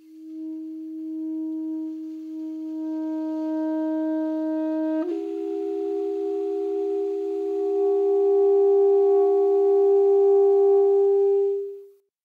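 Solo alto saxophone playing a slow, sustained phrase. It holds one long note that gradually grows louder, then about five seconds in slurs up to a slightly higher note, which swells further and is cut off cleanly near the end.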